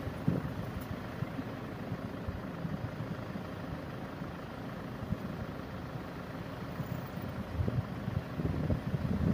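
Steady low rumble of motor vehicle engines and road traffic, with a few brief low thumps.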